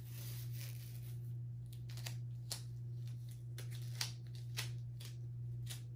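Adhesive tape being peeled off its roll and torn by gloved hands. A rasping peel runs through the first second and a half, then comes a handful of short, sharp rips and crackles. A steady low hum sits under it all.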